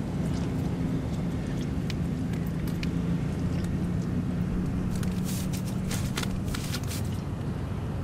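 Eating a wrapped sandwich: crisp crinkles and clicks of the paper wrapper and mouth sounds, clustered about five to seven seconds in, over a steady low hum and rumble.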